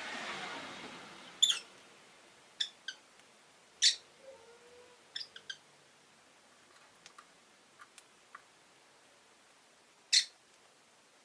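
Rosy-faced lovebirds giving short, sharp chirps, singly and in quick pairs, with the loudest calls about four seconds in and near the ten-second mark. A passing car fades away during the first second or so.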